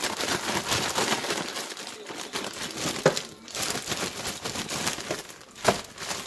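Plastic zipper bag being shaken hard: the bag crinkles continuously as chunks of raw carrot, potato and onion tumble inside it. Two sharp knocks stand out, about three seconds in and again near the end.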